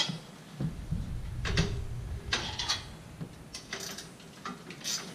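Scattered metal clinks and knocks, several in a few seconds, of a wrench working on bolts among the steel parts of a Brunswick A2 pinsetter.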